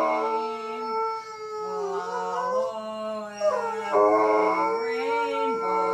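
Golden retriever howling along to a woman singing, in long wavering howls that slide in pitch.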